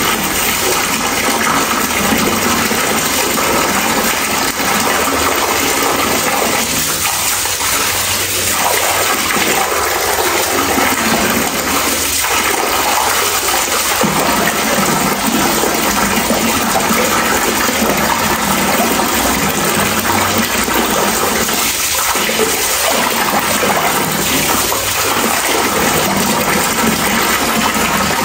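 Steady, loud rushing water, an even unbroken noise with no distinct events.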